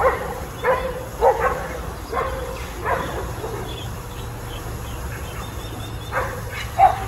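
Dogs barking in short, separate barks: several in the first three seconds, a lull, then a couple more near the end, as they mob an otter in the water.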